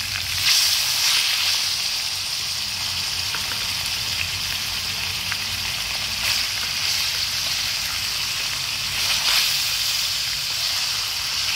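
Lemongrass-coated pork cutlets sizzling as they fry in hot oil in a metal pan, a steady hiss with a few light pops. The hiss swells briefly about half a second in and again around nine seconds in.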